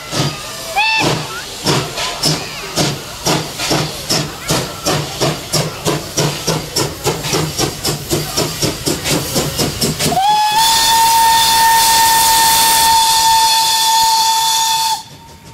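Small steam tank locomotive pulling away, its exhaust chuffing evenly at about three beats a second, with a short whistle toot about a second in. About ten seconds in the steam whistle opens with a brief rise in pitch, then holds one loud steady note for about five seconds before cutting off sharply.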